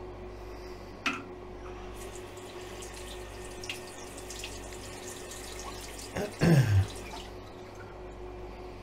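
Tap water running and splashing into a bathroom sink, as when a straight razor is rinsed during a shave. There is a sharp click about a second in and a short loud sound falling in pitch about six seconds in.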